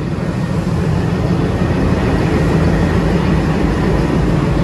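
Diesel locomotive engine running close by: a steady low rumble with a faint high whine, growing slightly louder.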